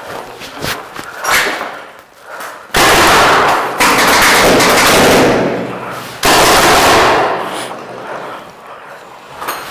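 Paintball markers firing rapid strings of shots at close range. The firing comes in two loud stretches: one starting about three seconds in and lasting a couple of seconds, and a shorter one about six seconds in.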